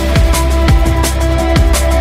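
Electronic dance music with a fast, steady beat: deep kick drums dropping in pitch, sharp percussion hits and a constant deep bass.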